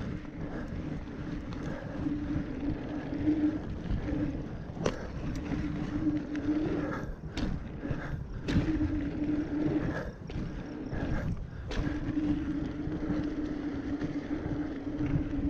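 Mountain bike being ridden, with a steady rolling hum that drops out now and then under wind noise on the microphone, and several sharp knocks and rattles as the bike goes over bumps.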